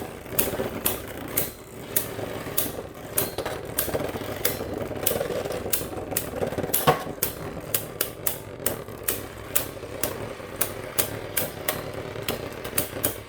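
Two spinning Beyblade tops, one of them 3D printed, whirring in a plastic stadium and clacking against each other again and again, a couple of sharp hits a second at irregular intervals.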